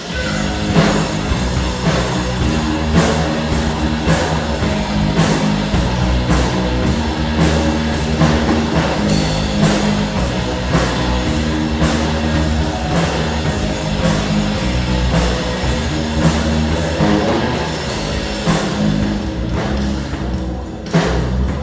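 Rock music with a drum kit keeping a steady beat over sustained low notes.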